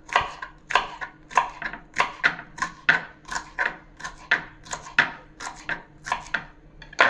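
Kitchen knife slicing winged beans thinly on a wooden cutting board, a steady run of strokes about three a second.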